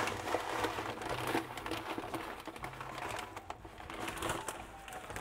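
Small gravel pouring out of a plastic bag onto the glass bottom of an empty aquarium: a fast, irregular patter of small stones, with the plastic bag crinkling.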